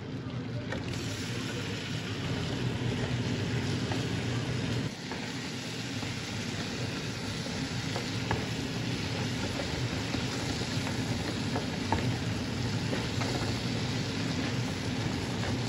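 Oil and chicken breast pieces sizzling in a nonstick pan while being stirred with a wooden spatula, with a few faint taps. A steady low hum runs underneath.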